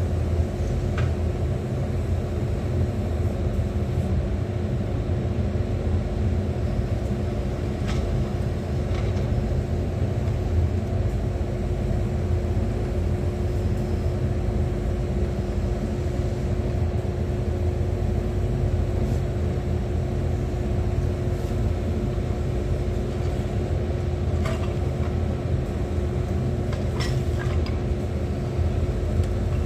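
Excavator's diesel engine running at a steady speed with a constant hum, with a few light clicks or knocks.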